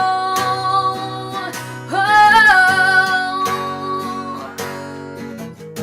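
Song with acoustic guitar strumming under a female singer who holds two long notes, the second starting about two seconds in; the voice falls away near the end, leaving the guitar.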